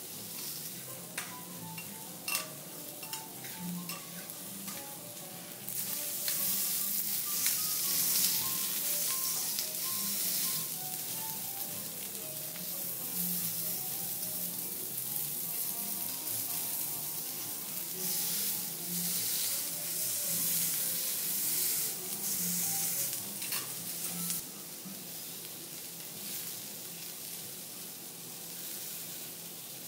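Vegetables sizzling on a teppanyaki steel griddle: sliced shiitake mushrooms, snow peas and yellow vegetable slices frying, with a few sharp taps of the chef's knife and spatula on the plate. The sizzle grows louder about six seconds in and eases back a few seconds before the end.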